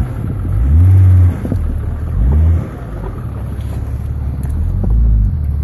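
Off-road 4x4's engine running at idle with a low rumble, revved up briefly three times: about a second in, about two and a half seconds in and near the end.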